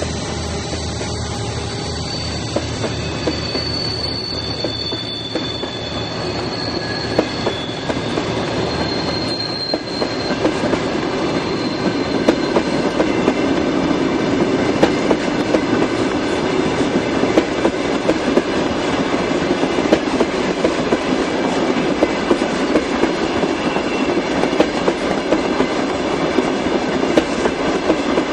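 Freight wagons rolling past on a curve: a steady rumble of steel wheels on rail, with sharp clicks over the rail joints growing louder through the second half. For about the first ten seconds, high thin wheel squeal from the curve rises above the rumble.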